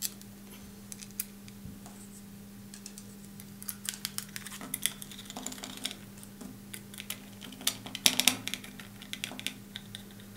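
Light clicks and taps of small parts being handled on a table: a plexiglass plate, an aluminium load cell and its wires knocking against each other and the tabletop. The clicks come in scattered runs, the loudest cluster about eight seconds in.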